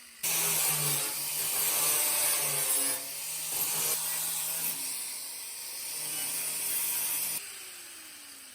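Hand-held power tool abrading rust and paint off the steel cowl panel, a steady harsh rasp that starts and stops abruptly and shifts briefly around three and four seconds in.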